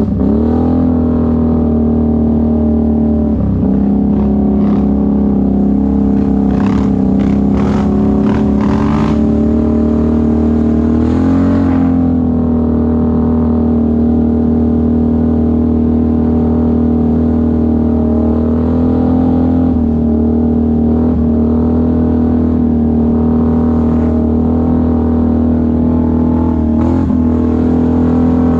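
Can-Am ATV engine running at steady trail speed, its pitch dipping and picking up again a few times as the throttle is eased off and reopened. A few short hissy sounds come about six to nine seconds in.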